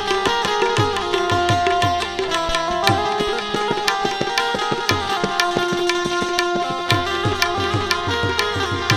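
Instrumental interlude of a Gujarati bhajan: tabla playing a brisk, steady rhythm, its bass drum strokes bending down in pitch, under sustained harmonium notes.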